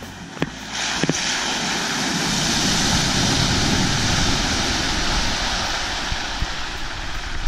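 Jeep Wrangler Rubicon driving through a muddy water hole, its tyres churning and splashing the water over the sound of its engine. The splashing starts about a second in, is loudest around the middle and eases off near the end.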